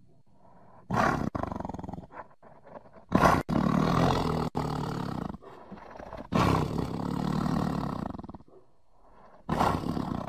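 Tiger roaring repeatedly: about four roars, each one to two seconds long, starting and stopping suddenly with short gaps between them.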